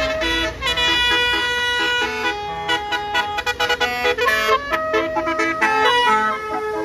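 Indonesian tour bus 'telolet' multi-tone horn playing a tune: held notes, then a quick run of short notes about three seconds in, then held notes again.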